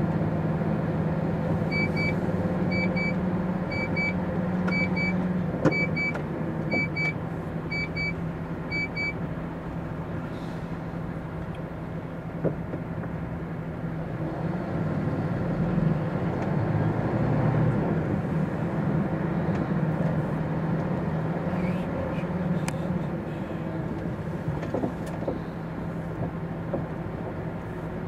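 MAN TGX articulated lorry's diesel engine running at low speed, heard from inside the cab. A double electronic tick from the indicator repeats about once a second and stops about nine seconds in.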